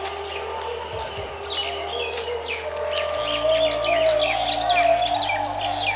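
Small birds chirping busily, a rapid string of short, quick calls starting about a second and a half in, over a steady high whine.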